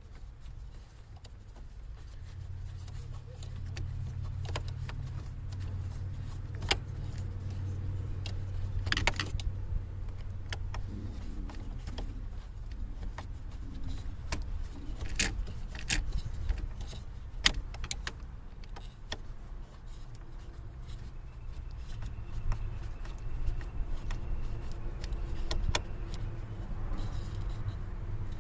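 Scattered clicks and metallic rattles of hand tools, screws and a key ring as a replacement ignition switch is fitted to a car's steering column, with a low hum in the first third.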